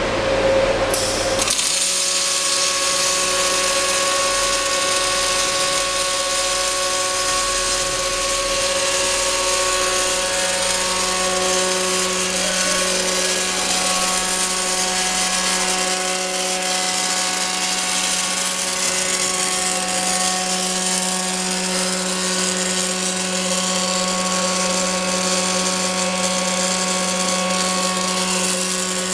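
Twin MIG/MAG welding torches of an automatic circumferential welding machine welding the seams of an LPG cylinder: a steady hiss from the arcs, set at about 254 A and 27.6 V, over a steady hum from the machine.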